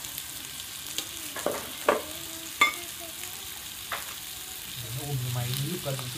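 Pieces of marinated Hemibagrus catfish (chả cá lăng) sizzling steadily in oil in a frying pan with dill and spring onions. About five sharp clicks of chopsticks on plates and bowls come over the sizzle.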